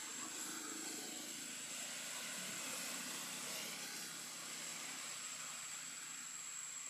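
Steady outdoor background: an even hiss with a constant high-pitched whine, and a faint low drone through the first half.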